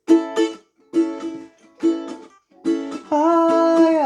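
Ukulele strumming the opening chords of the song in short, separate strokes, about one a second. About three seconds in, a voice comes in on a long held note over steadier strumming.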